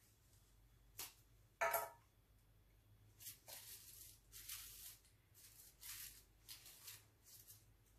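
Dry corn husks rustling and crinkling faintly as they are handled and bent into flower petals. About one and a half seconds in there is a single short, louder noise.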